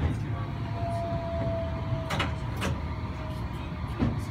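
Tokyu Setagaya Line tram running along the track, heard from inside the car: a steady low rumble with a faint thin tone held for about three seconds and a few sharp clicks, the last near the end.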